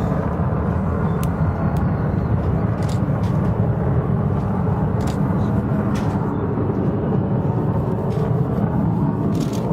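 Steady rumble of distant jet aircraft engines, even in level throughout.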